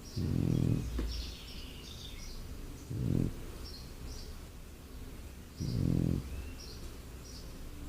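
French Bulldog snoring in its sleep: three low, fluttering snores, roughly one every three seconds.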